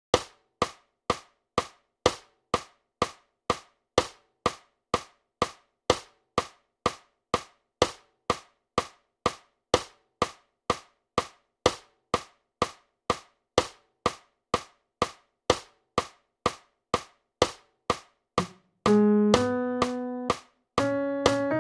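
Software metronome clicking steadily, about two clicks a second, as the count-in for a score playback. About nineteen seconds in, sustained pitched notes of the melody playback enter over the clicks.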